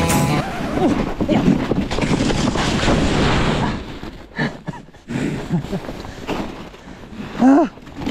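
Dog sled moving over snow, with a steady hiss and wind on the microphone, and a few short calls rising and falling in pitch, the loudest near the end.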